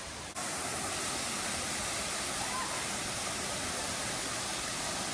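Steady rushing of falling water, starting abruptly shortly in.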